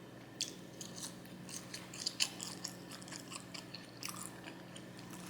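A person chewing a Raising Cane's fast-food meal: irregular wet clicks and crunches, the sharpest about two seconds in, over a low steady hum.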